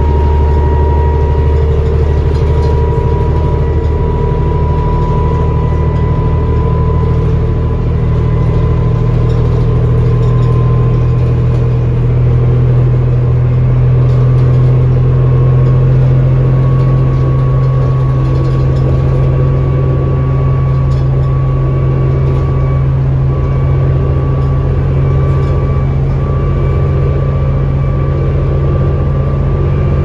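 Cummins ISL six-cylinder diesel of a 2007 New Flyer D40LFR transit bus running under way, heard from inside the cabin. It makes a steady low drone, with a thin whine that rises slowly in pitch as the bus gathers speed.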